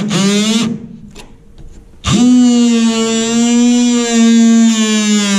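DeWalt oscillating multi-tool running under load, cutting off the hatch's stripped screws: a steady, loud buzzing whine. It cuts out just under a second in, with a few light clicks, then starts again about two seconds in and runs on steadily.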